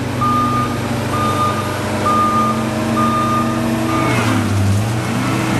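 John Deere 329D compact track loader's diesel engine running while its backup alarm beeps about once a second, five beeps that stop about four seconds in. Near the end the engine note briefly drops and recovers.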